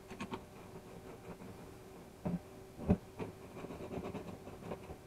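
Light clicks and knocks of hardware being handled: nylon-insert lock nuts being fitted by hand onto the bolts of a dump cart's metal under-frame, with two louder knocks a little past the middle.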